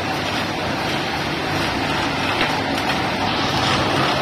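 Roll shear's motor-driven rotary disc cutter travelling along a painted sheet-metal sheet and slitting it: a steady running machine drone with a noisy cutting edge, even throughout.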